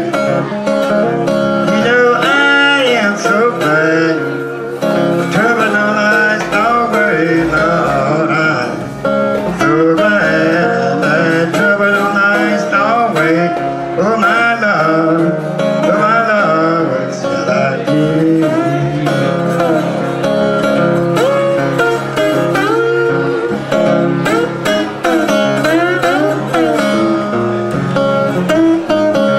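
Acoustic country blues in the Piedmont style: a fingerpicked acoustic guitar carries a steady accompaniment while a harmonica played into a hand-held microphone wails a lead line that bends in pitch.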